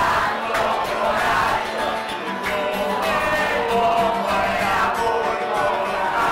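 A man singing an Italian song while strumming an acoustic guitar.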